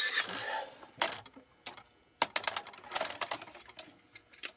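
Irregular sharp clicks and taps of small hard objects being handled, with small clusters of rapid clicks.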